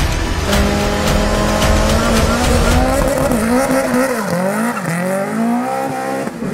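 BMW E30 rally car's engine held at high revs at the start line, then launching and accelerating hard away, the pitch rising and dropping at each quick gear change.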